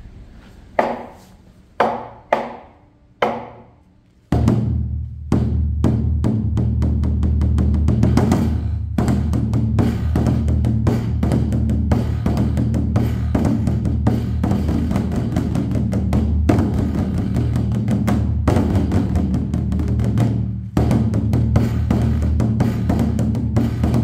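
Large temple drum played by hand: four single heavy beats, each ringing out, then from about four seconds in a fast, continuous roll of strikes with a deep sustained boom that keeps going, dipping briefly near the end.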